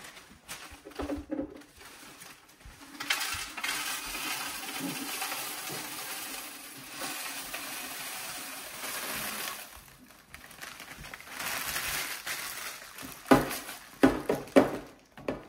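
Cornflakes with almonds poured from a plastic bag into a clear plastic canister: a steady dry rattling rush of flakes and nuts, pausing briefly and then starting again. A few short knocks follow near the end.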